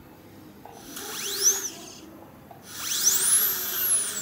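Dental drill (handpiece) whining in two bursts about a second apart; each time its high pitch rises as it spins up and falls as it slows. It is stripping enamel from between the teeth (interproximal reduction) to make space for aligners.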